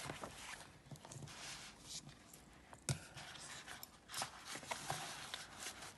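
Paper booklets being handled and shifted on a table: light rustling with a few soft taps and clicks, two sharper ones about three and four seconds in.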